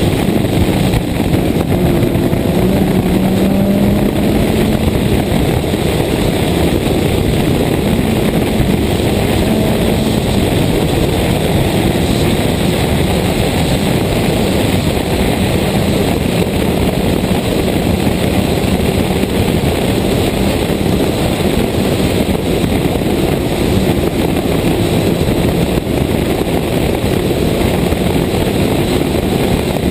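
Toyota Corolla 1.6 rally car driven hard, its engine pitch rising and falling through the gears, heard from a camera mounted outside the car, so heavy wind and road noise lie over the engine.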